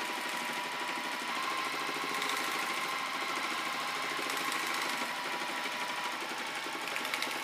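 Juki TL-98Q straight-stitch sewing machine running steadily, a continuous rapid needle-and-motor rattle as fabric is free-motion stitched.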